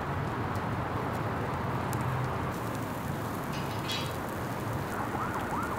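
Open wood-and-charcoal fire burning with scattered sharp crackles over a steady noisy hiss and low hum. A few short wavering whistle-like chirps come near the end.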